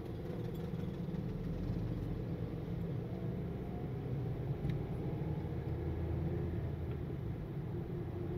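A car's engine and road noise while driving: a steady low rumble, with a faint engine note rising slightly near the end.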